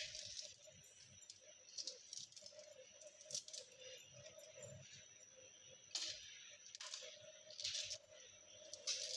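Faint, irregular scraping and clinking of kitchen utensils during cooking, about seven short bursts, over a steady low hum with a thin high whine.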